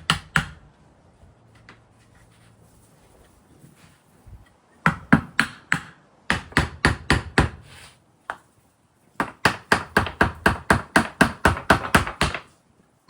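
Hammer striking wood in three quick runs of sharp, regular blows, about four or five a second, with short pauses between runs.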